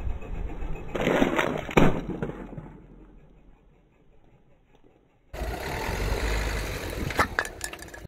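Car tyre rolling over a sealed snack packet on asphalt, the packet crackling and bursting with two sharp cracks a second or two in, then quiet. Tyre rumble starts again suddenly with a few sharp cracks near the end.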